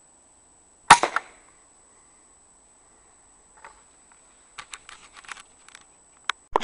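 A single rifle shot about a second in, sharp with a short ringing tail. A few seconds later comes a run of light clicks, over a faint steady high-pitched whine.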